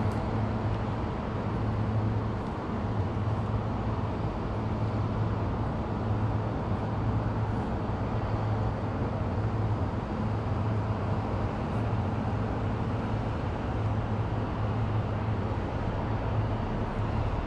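Steady background rumble of city road traffic, with a constant low hum beneath it.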